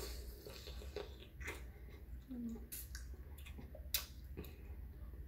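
Close-up chewing and wet mouth sounds of a person eating seafood boil from her fingers, with scattered smacks and lip clicks. There is a brief low hum about two and a half seconds in.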